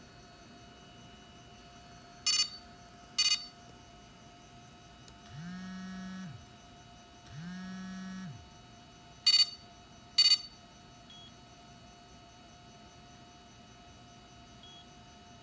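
Electronic beeps and buzzes: two short, loud beeps, then two longer low buzzes that each slide up in pitch, hold and slide back down, then two more short beeps. A faint steady electronic hum runs underneath.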